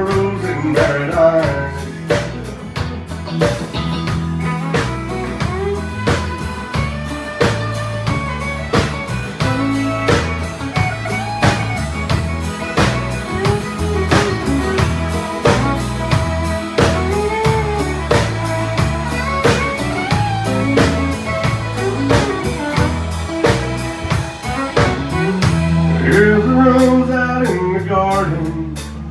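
Live country band playing with fiddle, electric and acoustic guitars, bass guitar and drums to a steady beat, the fiddle bowing a melody line.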